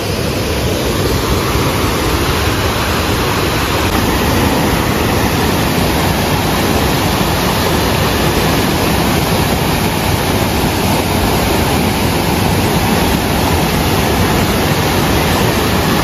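Loud, steady rush of a waterfall cascading over rocks into a river.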